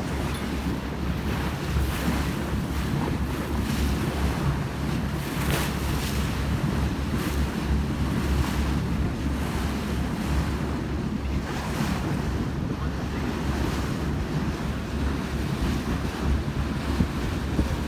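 Boat under way on open sea: wind buffeting the microphone over the rush of water along the hull and a low steady drone, with occasional louder gusts.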